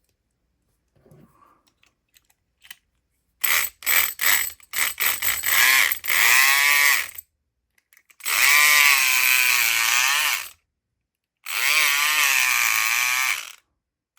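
Southord E500XT 4.5-volt electric pick gun buzzing as its vibrating pick is worked in a lock cylinder: a few short blips, then three longer runs of about two seconds each, the motor's pitch wavering as the load changes.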